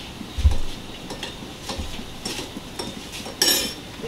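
Metal spoon scooping sugar from a plastic jar and clinking against a small ceramic bowl: scattered light clinks and scrapes, a low thump about half a second in, and a louder brief scrape about three and a half seconds in.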